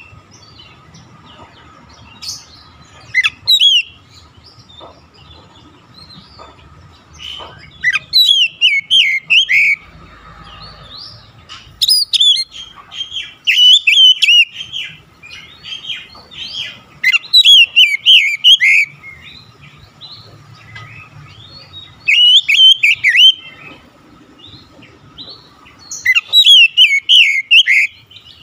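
Oriental magpie-robin singing in loud bursts of rapid, varied whistled notes, about six phrases a few seconds apart, with a faint steady tone underneath.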